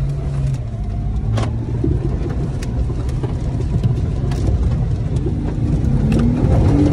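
Jeep Wrangler engine pulling hard in low range through mud, heard from inside the cab, with sharp knocks and spatter as mud hits the body and windshield. The engine note rises slightly near the end.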